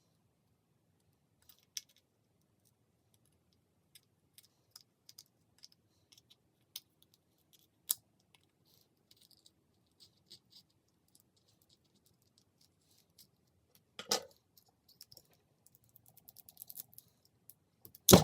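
Scattered small clicks and light scrapes of hands and a tool working at the internal parts of a 5th-generation iPod nano. There is a louder knock about fourteen seconds in and a sharp snap right at the end.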